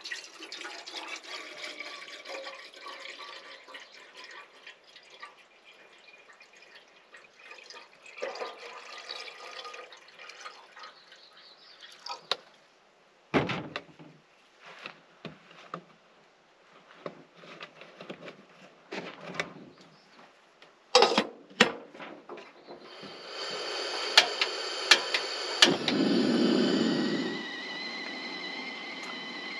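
Water poured from a plastic jug into a stainless steel kettle, running and gurgling for about the first twelve seconds. Scattered knocks follow. From about two-thirds of the way through comes a steady hiss with a few sharp clicks, the sound of a propane camp stove burner being lit and running.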